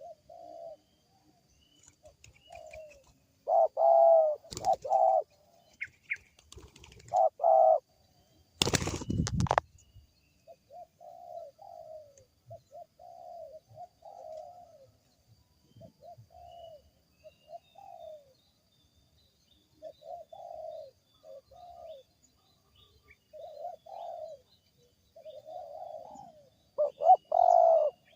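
Wild spotted dove cooing over and over in short phrases, with a few louder phrases, in a call its finder finds unusual. About nine seconds in, a brief loud rustling burst cuts across the cooing.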